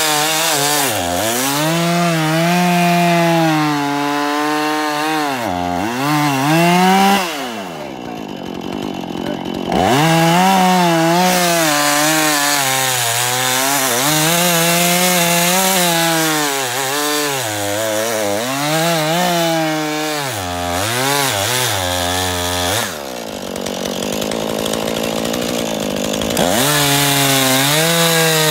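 Husqvarna two-stroke chainsaw cutting through a log, its engine pitch wavering as the chain bogs and frees in the wood. Twice, about eight seconds in and again near the end, the throttle is let off to idle and then opened back up into the cut.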